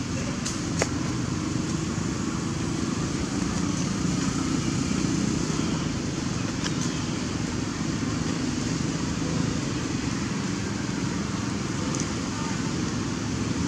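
Steady outdoor background noise, a low rumble that runs without a break, with a few faint clicks.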